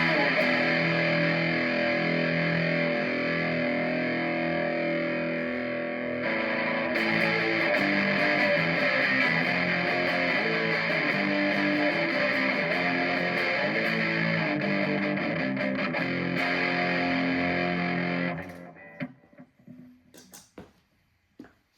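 Distorted electric guitar played through a chain of effects pedals into a FoxGear Plex55 pedal amp, sustained chords and notes at a steady level. The playing stops about three-quarters of the way through, followed by a few faint clicks.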